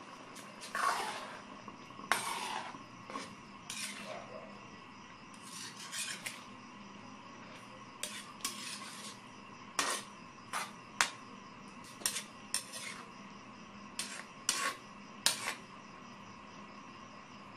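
A metal cooking utensil scrapes and clinks against an aluminum wok as sautéed bottle gourd and pork are stirred in their broth. The strokes are irregular, roughly one a second, and the sharpest clinks fall in the second half.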